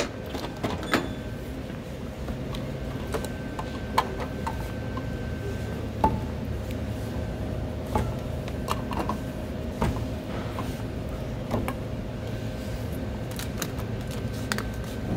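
Scattered knocks and clinks of grocery items (bottles, jars, packages) being set down into a wire shopping cart at a checkout, over a steady store hum.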